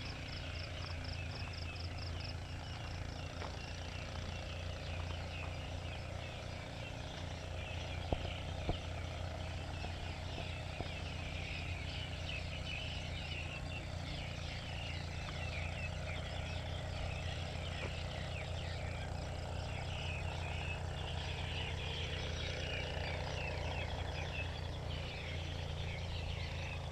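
Evening chorus of calling insects and frogs, a dense, continuous mass of high chirps and trills, over a steady low hum. A fast-pulsing high call runs through the first couple of seconds, then stops.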